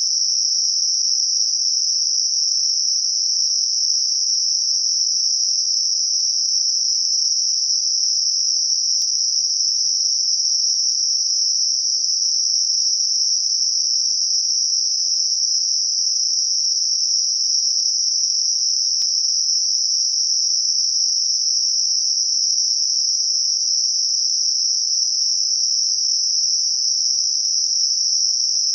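Synthetic narrow-band noise, filtered to a bell-curve band centred on 5.5 kHz, playing as a steady, high, even hiss made to mask tinnitus.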